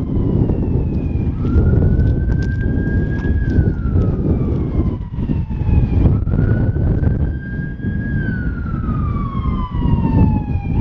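Police siren sounding a slow wail: two cycles, each rising for about two seconds and falling for about three, over a loud low rumble.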